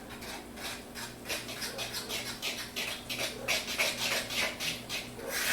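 Muffin batter being stirred by hand in a mixing bowl: a utensil scraping around the bowl in quick, even strokes, about three or four a second, louder in the second half. The batter is runny from too much liquid.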